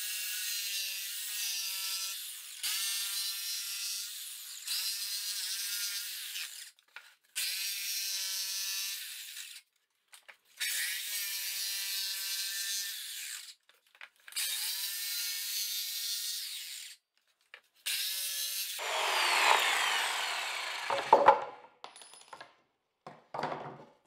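Jigsaw cutting a circle in plywood while guided on a trammel arm. It runs with a high motor whine in several stretches of two to three seconds, broken by brief silences. Near the end a louder, rougher stretch of cutting is followed by a couple of sharp knocks.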